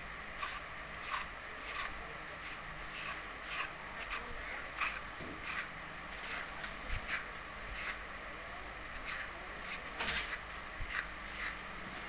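Hand peeler scraping down the skin of a green papaya in short, quick strokes, about one to two a second at an uneven pace.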